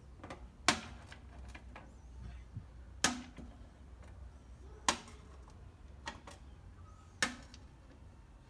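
Chrome steel deep sockets set down one at a time on a hard surface: four sharp metallic clicks with a brief ring, about two seconds apart.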